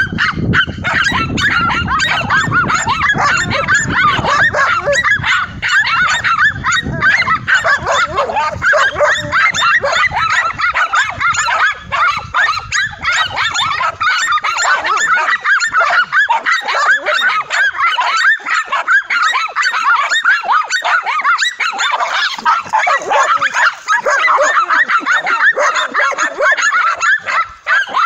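A pack of dogs barking and yapping non-stop in rapid, overlapping barks at a cornered tegu lizard. A low rumble runs under the first half and stops about halfway through.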